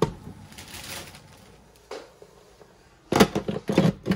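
Kitchen clatter: a faint hiss, a single click, then from about three seconds in a quick run of sharp knocks, like utensils, a knife or a pan being worked at the counter and stove.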